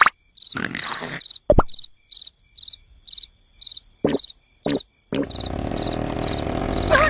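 Crickets chirping steadily, a short high chirp about three to four times a second, broken by short noisy bursts that start and stop abruptly; from about five seconds in a steady low noise runs under the chirping.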